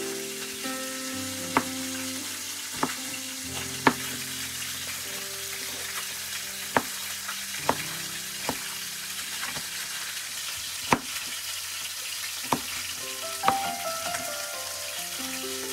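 Chef's knife cutting through tomatoes and striking a wooden cutting board: about nine sharp, irregular knocks, with a steady hiss and soft background music underneath.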